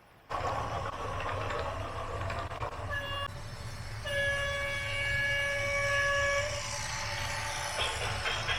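A short horn toot about three seconds in, then one long steady horn blast of about two and a half seconds, over a continuous rumble of heavy machinery.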